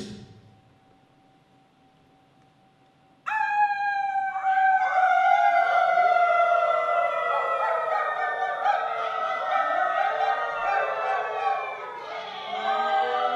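Near silence with a faint steady hum for about three seconds, then layered howling voices enter abruptly: several long tones, each sliding slowly downward in pitch, overlapping as more join in.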